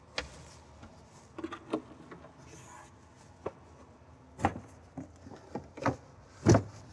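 Removable tonneau (cargo) cover of a 2015 Lexus NX being unhooked, folded and stowed under the cargo floor panel: a string of plastic clicks, knocks and rubbing, the loudest knock near the end.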